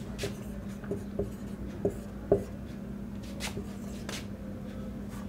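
Marker pen writing on a whiteboard: a string of short taps and strokes in the first two and a half seconds, then a couple of brief, higher scratchy strokes, over a steady low hum.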